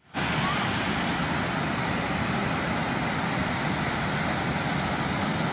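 Muddy floodwater of a hill torrent in spate rushing past its bank: a steady, even rushing noise that doesn't let up.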